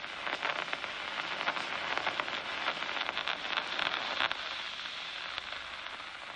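Amplified nerve impulses from a locust's DCMD visual neuron played through a loudspeaker: a dense crackle of clicks over hiss. It is thickest for the first four seconds or so, then thins out. The crackle is a burst of action potentials, the neuron's response to the eye being stimulated.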